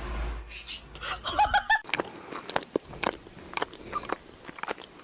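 Chewing and crunching: many quick, irregular crisp crunches begin about two seconds in, after a few short high squeaks.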